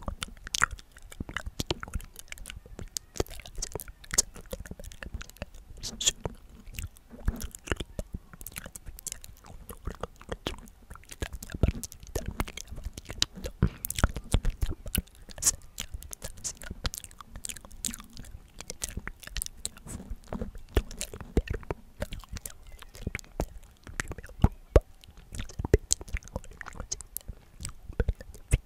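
Inaudible whispering very close to the microphone: a dense, irregular run of wet mouth clicks and lip smacks, with a faint murmur of breathy voice now and then.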